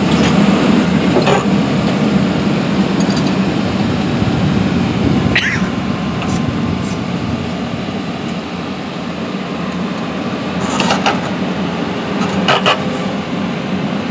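Excavator engine running steadily with a low rumble, with a few sharp knocks and a brief squeak along the way.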